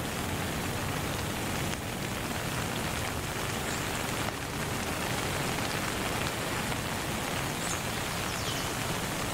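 Steady rain ambience, an even hiss of falling rain, with a few faint high chirps.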